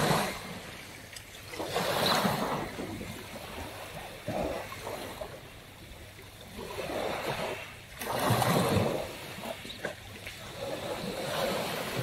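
Small sea waves washing up on a pebble beach and running back, swelling and fading every few seconds.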